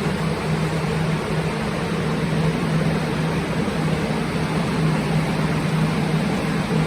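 Plastic air-mover drying fans running steadily: a constant rush of blown air over a steady motor hum.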